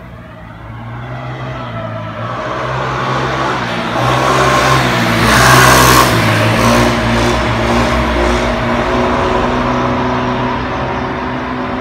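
A motor vehicle passing by: engine and road noise build to a peak about five to six seconds in, then slowly fade.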